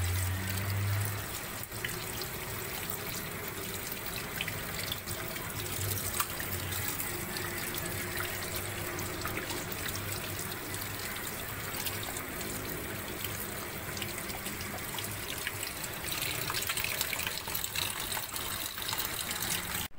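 Kitchen tap running steadily into a plastic tub of raw chicken pieces in a stainless steel sink, the water splashing and trickling as the chicken is rinsed and rubbed by hand.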